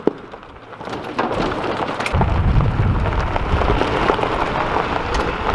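Electric golf cart rolling over gravel: a steady hiss of tyres crunching on stones, with a low rumble joining about two seconds in.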